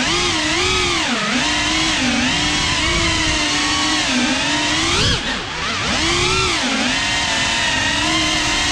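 GEPRC Cinelog 35 cinewhoop FPV drone's brushless motors and propellers whining in flight, the pitch rising and falling with each throttle change, with a brief dip about five and a half seconds in.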